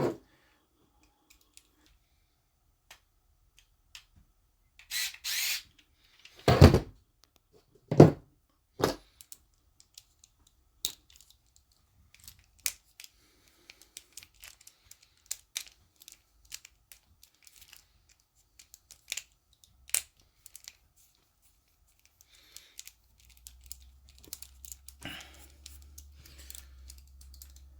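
Small tools and metal parts handled on a workbench while a screw is backed out of an RC car's diff gear shaft: scattered clicks and light taps, a brief rustle about five seconds in, and two louder knocks soon after. A low steady hum comes in near the end.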